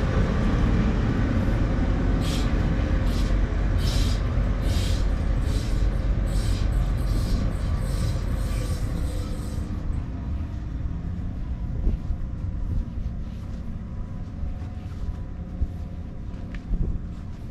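Diesel shunting locomotive's engine running with a steady low rumble, fading gradually in the second half. Over it in the first half, footsteps crunch on track ballast about twice a second.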